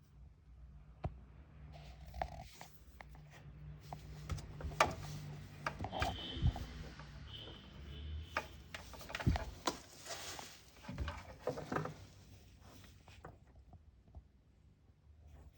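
Clicks, knocks and rubbing of things being handled, busiest in the middle, over a faint low hum for the first few seconds.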